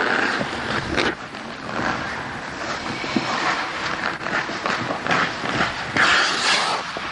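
Ice hockey skate blades scraping and hissing on the ice as a skater strides, with a louder scrape about six seconds in and a sharp click about a second in.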